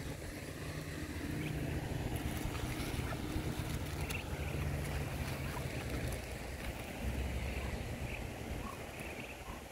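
A low steady hum like a distant motor, fading after about six seconds, with a few faint high peeps from Muscovy ducklings scattered through.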